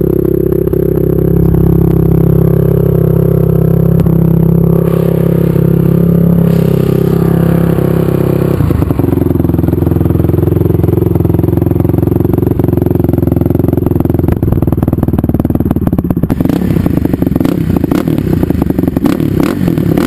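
Honda TRX450R's single-cylinder four-stroke engine running through an HMF aftermarket exhaust while still cold. At first it is a steady, even tone. A little over eight seconds in it changes to a rougher, choppier running with closely spaced firing pulses that lasts to the end.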